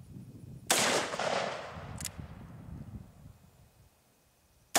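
Two shots from a Freedom Arms Model 83 .475 Linebaugh revolver, each a sharp, heavy report that rings out for about a second. The first comes just under a second in and the second right at the end, with a faint click between them.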